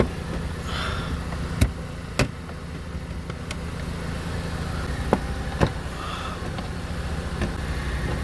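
Plastic push clips on a car's splash guard being pried and popped out: several sharp clicks a second or so apart, over a steady low hum.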